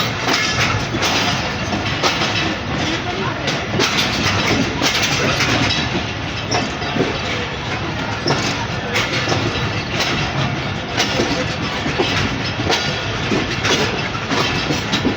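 Allama Iqbal Express passenger train running, its wheels clattering over the rails in a dense, irregular stream of knocks.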